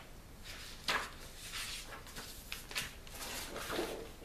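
A book being handled close to the microphone, its paper pages rustling as it is opened, with a sharp tap about a second in.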